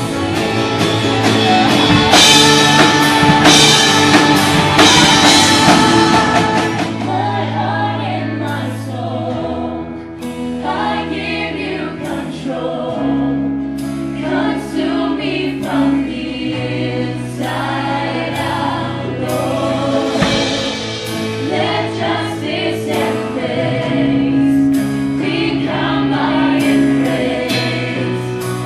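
A live worship band plays, with amplified guitar and a group singing. The first several seconds are the loudest and fullest; after that it drops to sung phrases over long held bass notes.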